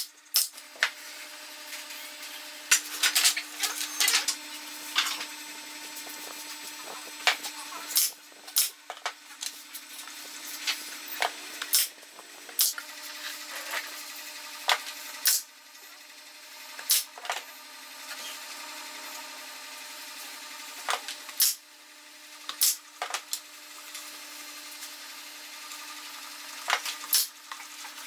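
Irregular sharp knocks and clicks of wooden pieces and hand tools being handled during woodworking, over a steady faint hum.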